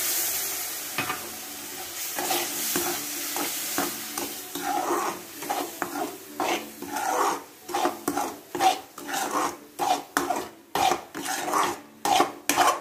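Water sizzling as it meets the hot ghee-roasted wheat flour and sugar in a kadhai, the hiss dying away over the first couple of seconds. Then a slotted steel spatula stirring and scraping the thickening halwa against the pan in repeated strokes, settling to about two a second toward the end.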